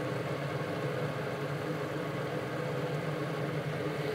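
Steady, unchanging low mechanical hum.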